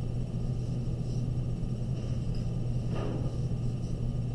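A steady low hum, with faint scratching of a pencil drawing on paper and one brief louder stroke about three seconds in.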